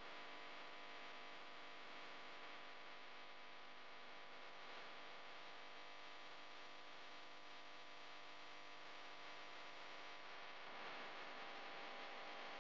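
Faint steady hum with a hiss, rising slightly near the end.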